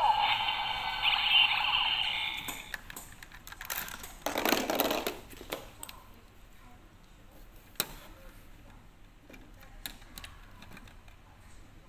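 A Kamen Rider Zi-O DX Ziku-Driver toy belt's electronic sound effect tails off, then plastic rattling as toy pieces are handled about four seconds in. A few sharp plastic clicks follow as a pink add-on gadget is fitted against the belt.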